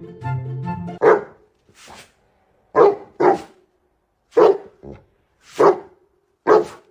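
A dog barking: about six loud single barks spaced out over several seconds, with a couple of fainter ones between. Background music plays before the barks start.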